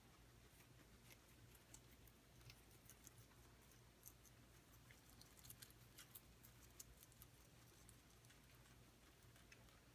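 Faint crunching of a small pet chewing fresh vegetables: a scatter of soft, quick clicks, busiest from about four to seven seconds in.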